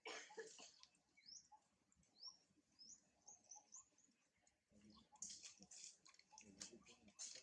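Faint bird chirps: a string of short, high rising notes in the first half, over soft rustling and scattered clicks.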